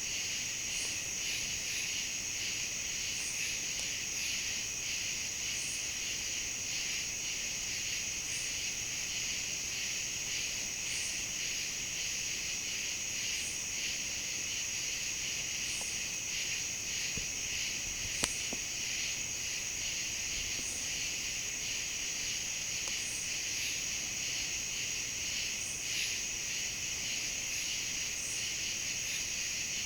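Steady outdoor chorus of insects, a continuous high-pitched trill in two layers, with fainter short chirps every couple of seconds and a single sharp click about 18 seconds in.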